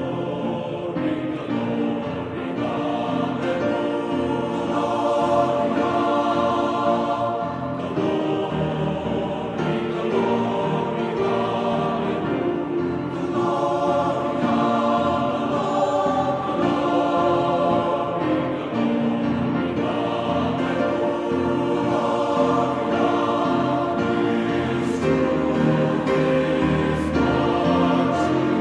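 Choral music: a choir singing sustained, changing chords.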